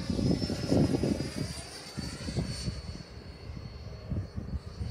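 Electric ducted fan of a Freewing F-5 Tiger RC jet flying past, a thin high whine whose pitch slides slowly lower as it goes by. Gusty wind rumbles on the microphone underneath, loudest about a second in.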